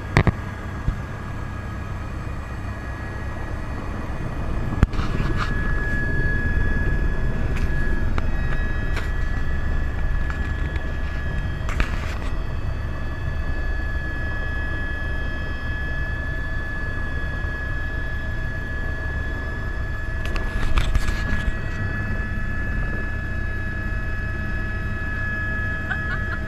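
Helicopter running, heard as a steady low rumble under a constant high turbine whine, with a few short clicks or bursts.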